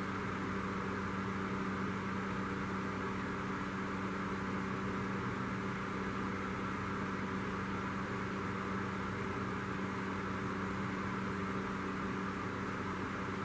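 Steady background hum with an even hiss, unchanging throughout: a constant low machine or electrical drone.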